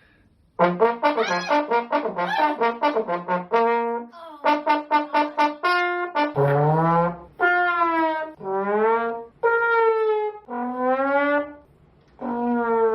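A brass instrument played for comic effect: after a short silence, a fast run of quick short notes for about five seconds, then a string of five longer notes that slide and waver up and down in pitch.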